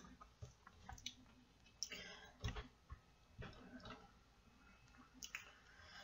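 Near silence: room tone with a few faint, scattered clicks.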